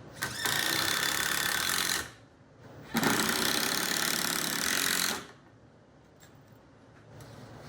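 Power driver twice running pocket screws into 2x4 stretchers, each run lasting about two seconds with a short pause between.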